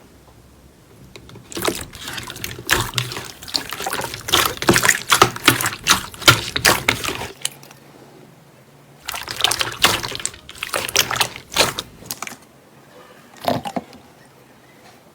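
Slime being worked by hand: quick wet clicks and pops. They come in a dense run from about a second and a half in to about seven seconds, a second run from about nine to twelve seconds, and a few more near the end.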